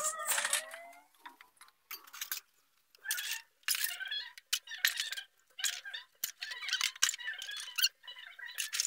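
Dishes being washed by hand: irregular scrubbing, squeaks and clatter of plates and a plastic container, in short bursts with brief pauses.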